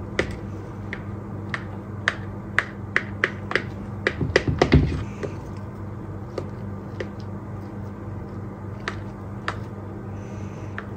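Knife tip clicking and tapping against a terracotta clay baking dish while layered crepes are cut into small squares: a run of short sharp clicks, thickest a few seconds in, then sparser.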